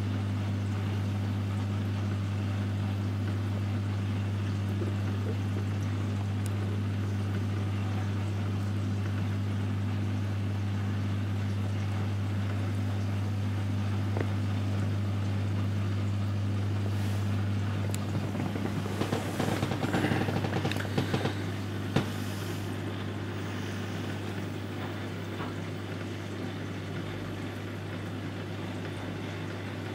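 Reef aquarium equipment running: a steady low hum from the circulation and return pumps over a soft wash of moving water. A few seconds of rustling and small sharp knocks come just before two-thirds of the way through, after which the hum is slightly weaker.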